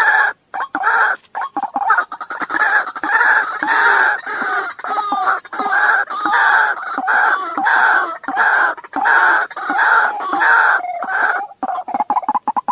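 White-breasted waterhen calling: a loud 'ruak' call repeated about twice a second in a long steady run, which breaks into quicker, shorter notes about a second before the end.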